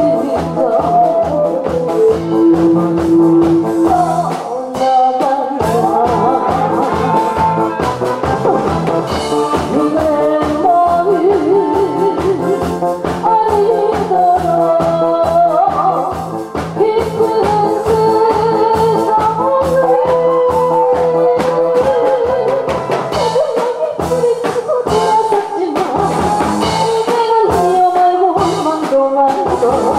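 A woman singing into a microphone over instrumental accompaniment with a steady beat.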